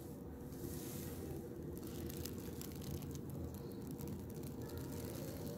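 Quiet room tone: a low steady hum with a few faint clicks, likely from the phone being handled.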